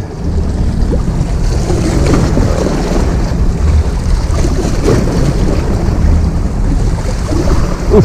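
Wind buffeting the microphone over big waves washing against a rocky sea shore, a steady rushing noise.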